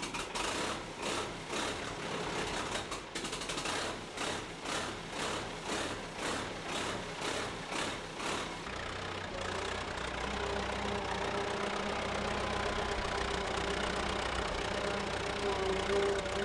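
1940 Fordson N tractor engine running with a regular, uneven pulsing beat of about one and a half pulses a second. From about nine seconds in it runs steadily and evenly.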